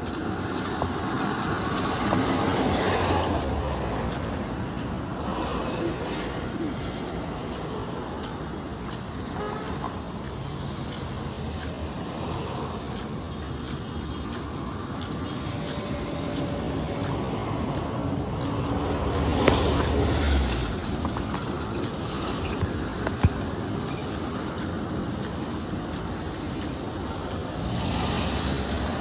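Road traffic: vehicles running and passing, two louder passes swelling about two seconds in and near twenty seconds, with car horns tooting briefly at times.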